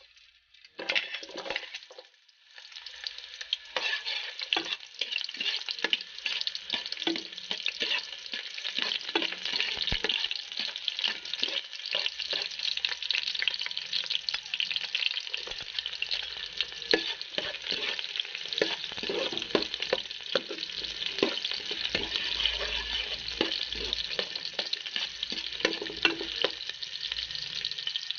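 Chopped shallots and garlic sizzling and crackling in hot oil in a metal pot, the sizzle starting about a second in as the first pieces hit the oil, with clicks of a metal spoon stirring them.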